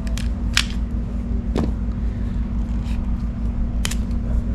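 A steady low mechanical hum, with a handful of short sharp clicks and ticks as a cable stripping tool is worked around the jacket of a Cat 6 Ethernet cable.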